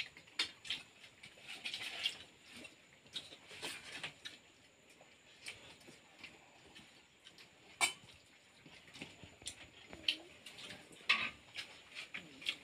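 Quiet, scattered clicks and clinks of people eating a meal by hand from steel plates and bowls, with a sharper clink about eight seconds in and another about eleven seconds in.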